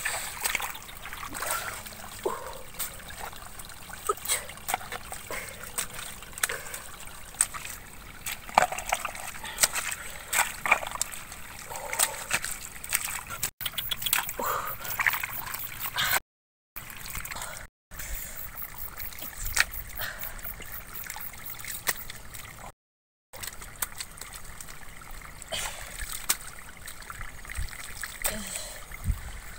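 Wet mud squelching and muddy water splashing as bare hands and a hoe dig into a waterlogged ditch, in irregular slaps and scrapes, with a few brief dropouts.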